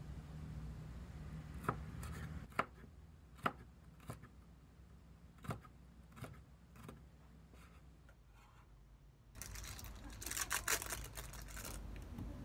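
Kitchen knife slicing a red bell pepper on a wooden cutting board: about eight sharp, unevenly spaced knocks of the blade on the board. Near the end, a few seconds of crinkling rustle from the plastic wrapper being peeled off an imitation crab stick.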